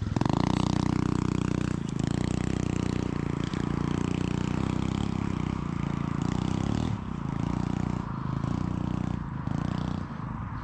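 A small motorbike engine running steadily, its pitch stepping slightly a few times, with some scraping and clattering.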